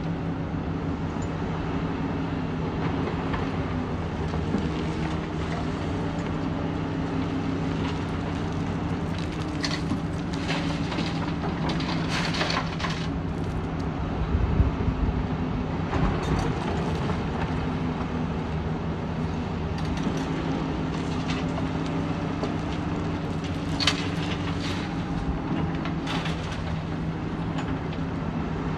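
Crawler excavator's diesel engine running steadily while it works, with several short bursts of clattering as gravel and rock are dropped from the bucket into a steel dump truck bed.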